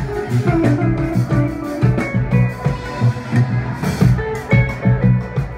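Live funk band playing: electric bass and electric guitars over a drum kit, with a steady beat.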